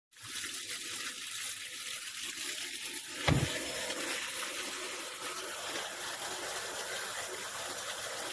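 Water rushing steadily into a Samsung washing machine's tub through its water inlet valve, with one low thump about three seconds in.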